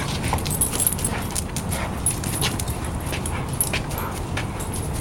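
Two puppies playing together, with scattered short sharp clicks and scuffles over a steady low rumble.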